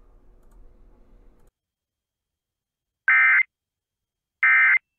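Emergency Alert System end-of-message data bursts: two short, loud digital tone bursts about a second and a half apart, starting about three seconds in, marking the end of the alert. Before them a faint steady hum cuts off at about one and a half seconds.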